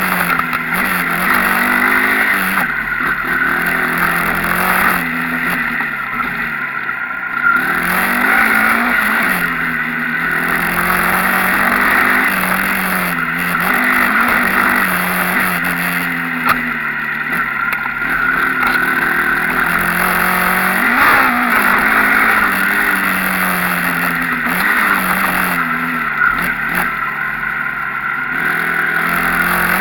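Enduro motorcycle engine under way, its pitch climbing and dropping again and again as the throttle opens and closes and the gears change.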